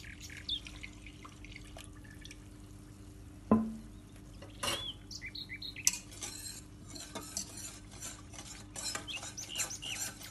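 Milk poured into a stainless steel saucepan of flour and sugar, a single clunk about three and a half seconds in, then a wire whisk beating the mixture in quick strokes, its wires rattling against the pot. Small birds chirp faintly in the background.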